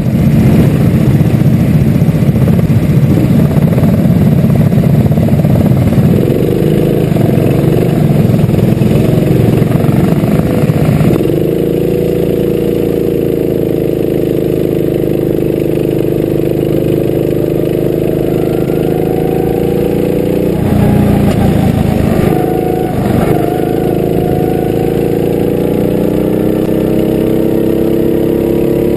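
Go-kart engines heard onboard: a dense, loud rumble at low speed among other karts for the first third, then the kart's own engine note, clear and steady, rising and falling in pitch with the throttle, with a brief dip and recovery a few seconds past the halfway point.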